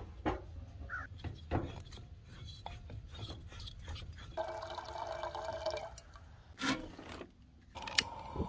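Clicks and metal knocks of a Century-Primus propane camp stove being opened and a gas cylinder being handled and fitted, then the click of a long lighter and a steady hiss starting near the end as the burner's gas begins to flow.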